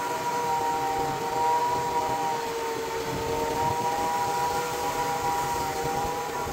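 Portable band sawmill's engine running steadily with a humming tone, its pitch sagging slightly midway and then recovering.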